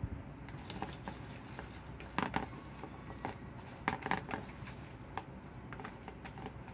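A utensil clinking and scraping against a bowl while stirring grated sweet potato. The clicks come irregularly, with a few louder knocks about two and four seconds in.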